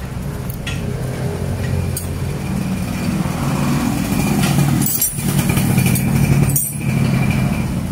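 A small engine running steadily at idle, a continuous low drone, with a few light clicks.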